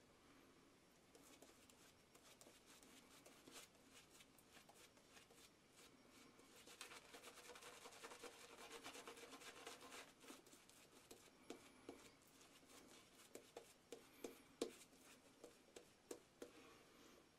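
Faint scraping of a vintage 'The Artist' straight razor cutting stubble through shaving lather. The strokes are short, and a run of small sharp clicks comes in the second half.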